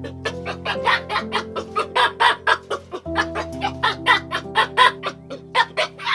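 A chicken clucking rapidly, about three or four clucks a second, over background music with held notes.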